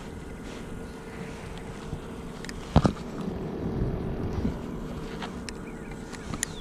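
Minn Kota Endura C2 electric trolling motor running with a steady hum, and one sharp knock about three seconds in.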